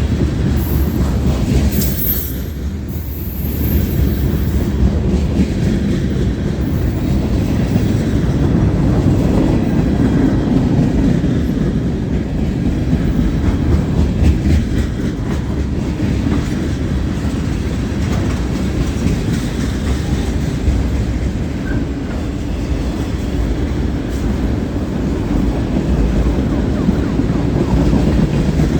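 A long CSX mixed freight train rolling past at close range, the steady rumble of its freight cars' wheels on the rails.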